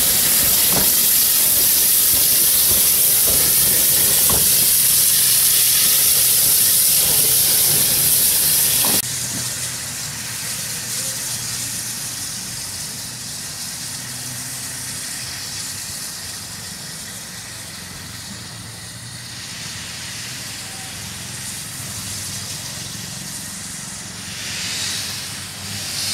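Steam hissing loudly from Victorian Railways J class steam locomotive J515 standing at a platform. About nine seconds in, the sound cuts suddenly to a softer, more distant hiss. A short burst of escaping steam swells near the end.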